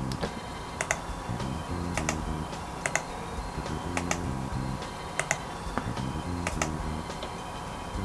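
Irregular sharp computer mouse clicks, often in pairs, as wires are drawn in a CAD program, over soft background music with a repeating pattern of low chords.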